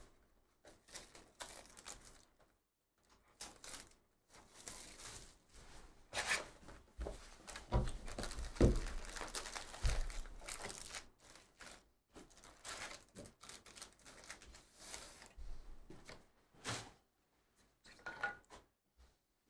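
A 2023/24 Panini Donruss Basketball hobby box being opened by hand: cardboard and wrapper tearing and rustling, then the foil card packs crinkling as they are pulled out and stacked, with a few soft thumps midway.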